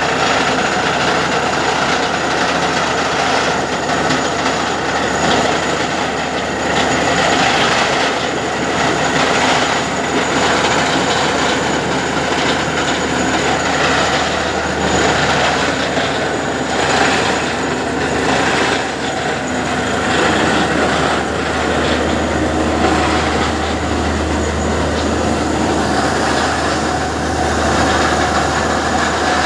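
Borewell drilling rig running: a loud, steady engine drone with a continuous rattling clatter from the drilling. The low drone grows stronger about two-thirds of the way through.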